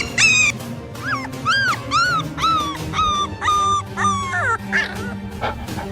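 A dog whimpering in a run of short, high, rising-and-falling whines, about two a second, that stop about four and a half seconds in, over background music.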